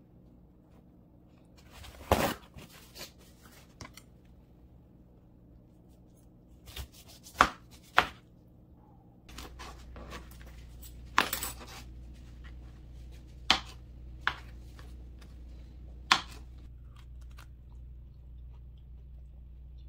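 Chef's knife chopping through a pineapple onto a plastic cutting board: about six sharp chops, a few seconds apart, two of them close together. A low steady hum comes in about halfway through.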